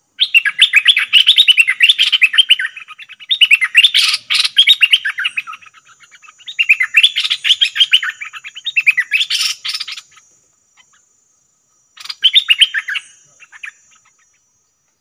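Nok dok taeng songbird in a bamboo trap cage singing in rapid trills of quick, repeated rising notes: three long phrases with short pauses, then a brief one near the end.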